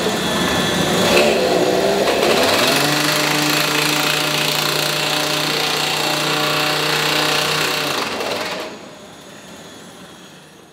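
Petrol-engined track drill boring into a wooden rail timber, its small engine running at high revs. From about two and a half seconds in it holds a steady note, and the sound drops away sharply near the end.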